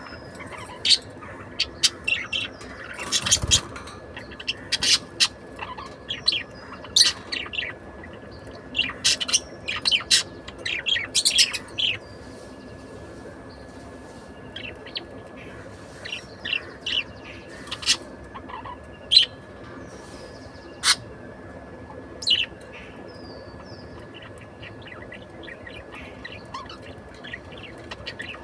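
Pet budgerigar chirping in quick, short calls, with rapid runs over the first dozen seconds that thin out to scattered single chirps.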